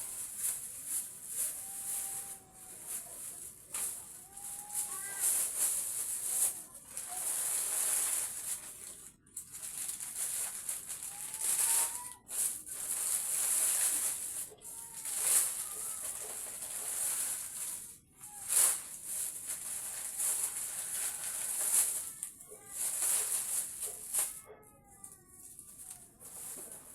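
Plastic packaging rustling and crinkling in irregular bursts as goods are unpacked, with a few faint high calls in between.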